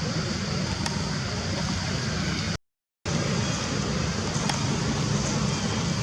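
Steady outdoor background noise with a low rumble and a high hiss, broken by a half-second gap of total silence about two and a half seconds in.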